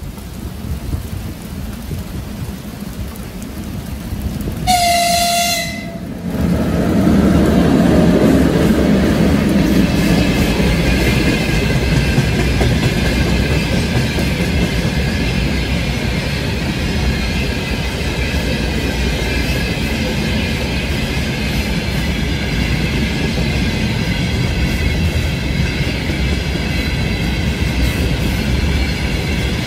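2ES6 electric locomotive hauling a freight train: a rumble that grows as it approaches, one horn blast of about a second some five seconds in, then the loud steady rumble and clickety-clack of the loaded open freight wagons running past.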